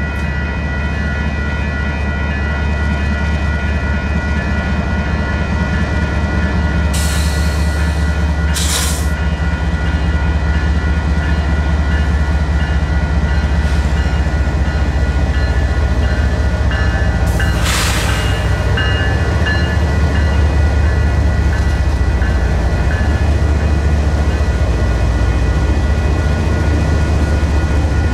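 Railroad crossing warning bells (WCH electronic bells) ringing steadily on several high tones over the low rumble of a Union Pacific freight train's locomotives and cars moving through the crossing, growing slightly louder in the first several seconds. Brief bursts of hiss come a few times.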